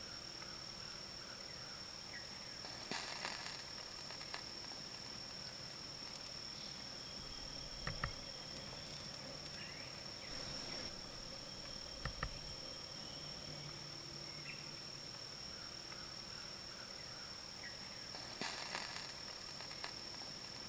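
Insects singing in the woods: one steady high-pitched drone that never breaks, with a few faint clicks around the middle and two brief soft rustles.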